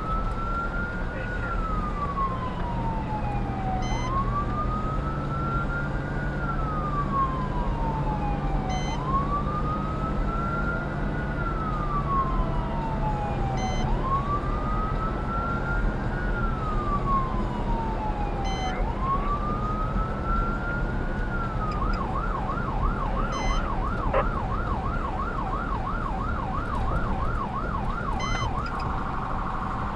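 Fire department response vehicle's electronic siren on wail, rising and falling about every five seconds. About two-thirds of the way through it switches to a fast yelp of about three cycles a second, then to an even faster warble near the end. The vehicle's engine and road noise run beneath it.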